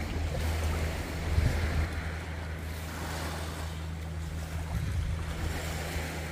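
Small sea waves washing on a rocky shore, with wind buffeting the microphone and a steady low hum underneath.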